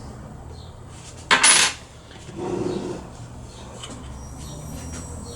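A short metallic clatter about a second in, then a softer knock, as metal parts of a portable key-cutting machine are handled; a faint thin high whine starts about four seconds in.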